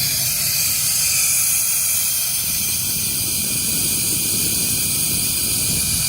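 Workshop air compressor system letting off a steady, high-pitched hiss of compressed air, with a low rumble underneath.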